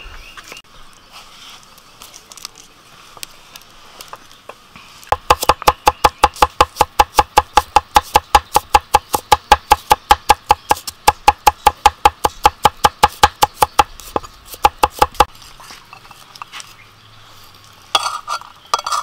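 Cleaver chopping garlic on a wooden chopping block: a fast, even run of knocks, about four or five a second, starting about five seconds in and lasting about ten seconds. Near the end, a few clinks as the minced garlic is scraped off the blade onto a plate.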